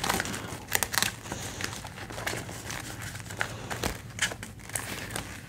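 Clear plastic binder pocket and laminated cash placeholders crinkling and rustling as they are handled, with many short, irregular crackles.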